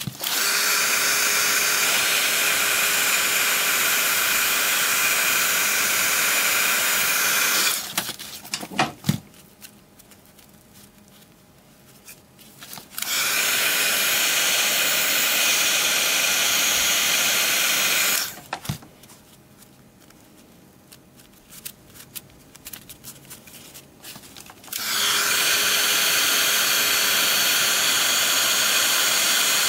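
Electric hot-air tool blowing steadily, switched on three times for about five to eight seconds each, as it heats clear soda-bottle plastic to shrink it onto a pipe. Faint handling clicks and rustles fill the gaps between runs.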